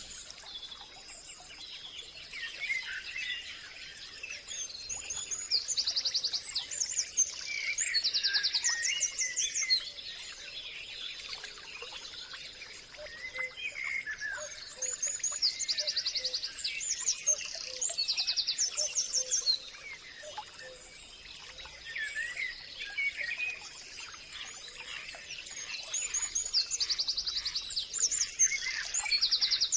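Birds singing: one bird repeats a phrase of fast, high trills about every ten seconds over busier lower chirping from other birds, with a faint steady high whine underneath.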